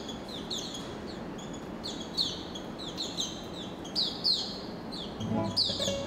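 Small caged songbirds chirping: a steady run of quick, high, falling chirps from more than one bird, over a faint background hiss.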